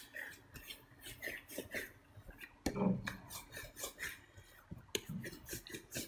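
Hands rolling and pressing bread dough into a log on a silicone baking mat: soft, irregular rubbing and patting, with one louder knock near the middle.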